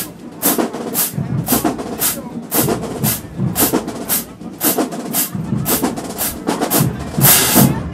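Marching band drumline playing a marching cadence: sharp drum and cymbal strikes on a steady beat of about two a second, with a longer, louder cymbal crash near the end before it cuts off.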